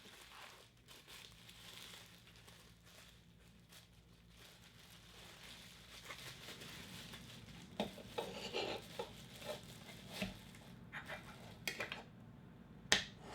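Packaging crinkling and rustling as it is handled and unwrapped by hand, faint at first, with scattered taps and clicks in the second half and one sharp click near the end.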